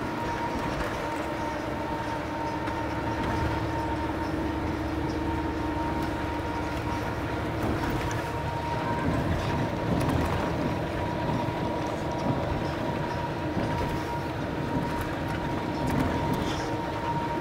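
Steady engine and road noise inside the cabin of a moving coach bus, with a thin steady whine running through it.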